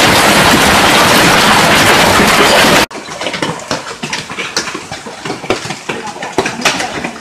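Heavy hail coming down as a loud, dense, even roar, which cuts off suddenly about three seconds in. Quieter hail follows, with many scattered sharp clicks and knocks of single hailstones striking hard surfaces.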